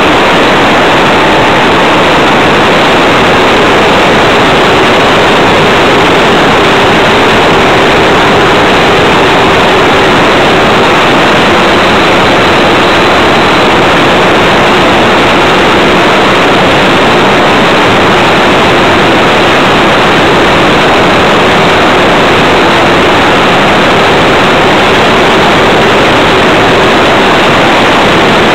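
A radio-controlled Tiger Moth biplane model in flight, heard through the onboard camera's own microphone: a loud, steady rush of motor, propeller and wind that swamps the tiny mic, with a faint steady motor tone underneath.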